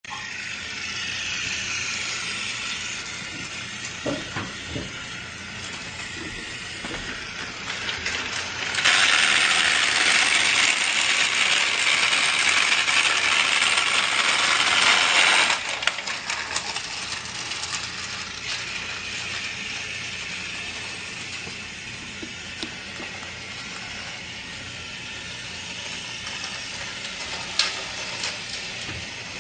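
Battery-powered toy train's small motor and plastic gears whirring steadily, with light clicks and rattles from the track. In the middle it grows much louder and hissier for about six seconds, then drops back.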